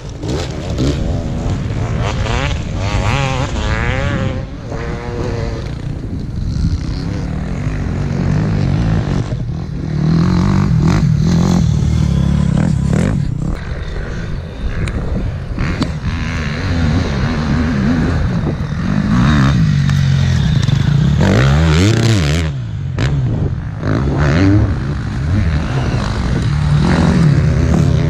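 Off-road dirt bikes riding past one after another, their engines revving up and falling back repeatedly as the riders accelerate and shift.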